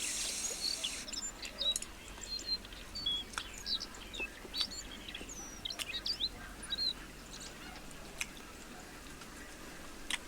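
Small birds chirping and twittering, many short high chirps over the first seven seconds, then fewer. A brief hiss at the very start.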